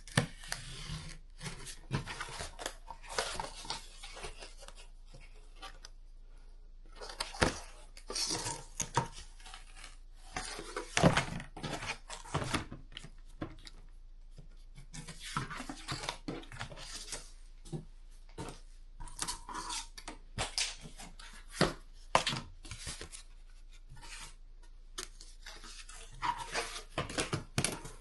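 Cardboard being cut and handled on a workbench: irregular scraping, tearing and tapping sounds with pauses between strokes.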